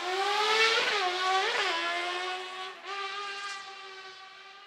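Car-cross racing buggy accelerating hard away from the start line. Its engine climbs in pitch and drops back at gear changes about one second, a second and a half and three seconds in, then fades as it drives off.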